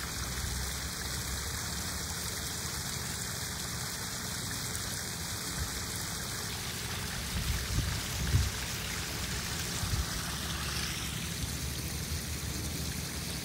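Small garden waterfall splashing steadily over rocks into a koi pond, with a few soft low thumps just past the middle.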